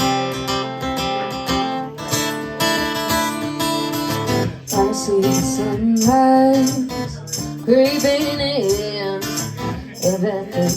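Acoustic guitar strumming a country song's intro, with a female voice coming in to sing over it about five seconds in.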